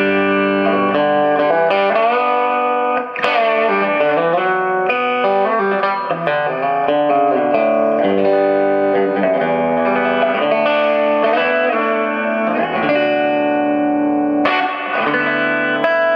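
Electric guitar played through a 1986 Marshall JCM800 4210, a 50-watt 1x12 tube combo, chords and notes ringing without a break. The amp is working again after new V1 and V2 preamp tubes cured its noisy pops.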